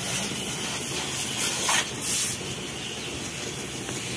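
High-pressure washer jet spraying the van, a steady hiss of water that strips off oily grime. The spray gets louder for a moment about one and a half to two seconds in.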